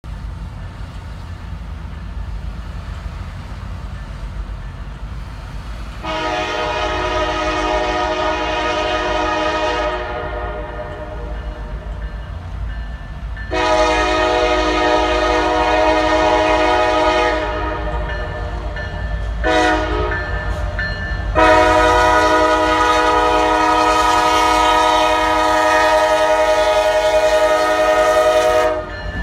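A diesel locomotive's multi-note air horn sounding the grade-crossing signal as the train approaches: two long blasts, a short one, then a long one held until the locomotive reaches the crossing. A steady low rumble sits under it.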